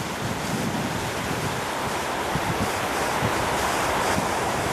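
Strong gale-force wind blowing across the microphone: a loud, steady rush of noise with no let-up.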